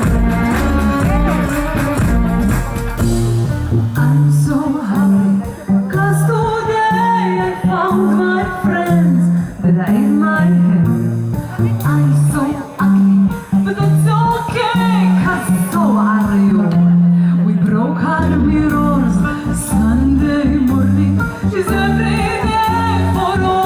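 A live band playing, with a singer and guitar over a stepping bass line. The heavy low end drops out a few seconds in, leaving the bass, voice and guitar, then the full band comes back in near the end.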